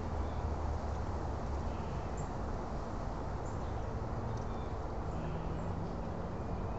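Steady low rumble of outdoor background noise, with a few faint, short high chirps.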